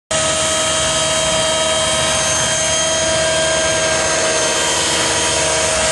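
Radio-controlled model helicopter running, a loud, steady, high-pitched whine.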